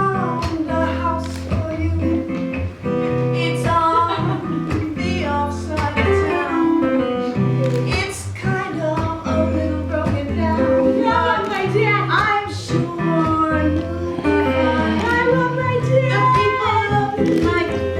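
Song with acoustic guitar and a female singing voice.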